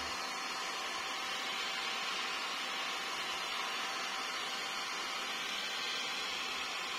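Handheld hair dryer running steadily: an even rushing hiss of blown air with a faint steady motor hum.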